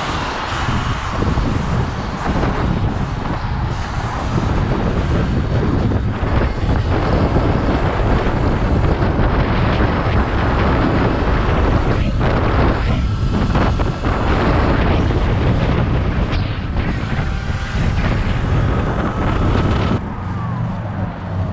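Wind rushing over the helmet camera's microphone, with tyre noise, as an electric dirt bike rides fast on a road, a thin faint whine showing now and then. The rushing drops off near the end as the bike slows.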